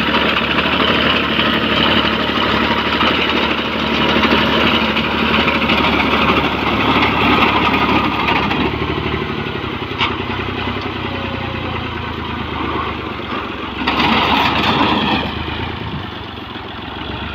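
Tractor engine running steadily under a front-mounted wheat reaper, with one sharp click about ten seconds in and a louder surge about fourteen seconds in.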